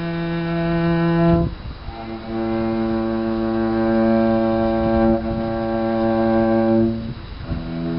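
Cello bowed slowly in long, held notes. One note breaks off about a second and a half in, the next is held for about four and a half seconds, and a new note begins near the end.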